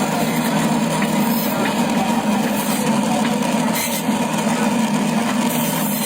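Steady low machine hum with a few faint knocks.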